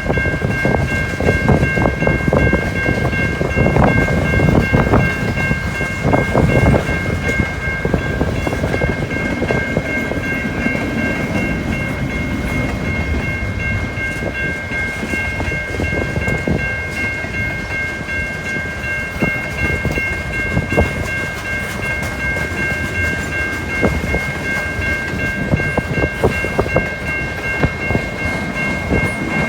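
Freight train cars rolling past with wheels clicking over the rail joints, and a steady high-pitched tone sounding over the wheel noise.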